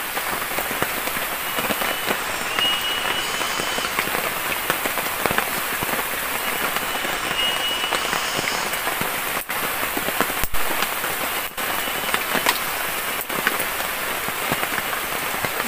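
Steady light rain falling on forest leaves and ground, with many small drops ticking close by.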